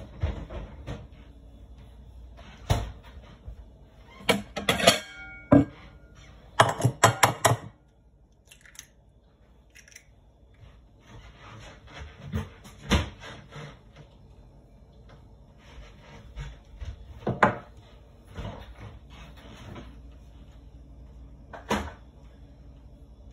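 Intermittent knocks and clinks of kitchen items being handled, with two quick runs of clattering about four and seven seconds in, then a few scattered single knocks.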